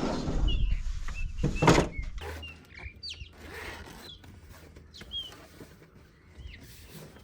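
Birds calling with short, high chirps, one every second or so. A louder stretch of noise with a low rumble fills the first two seconds.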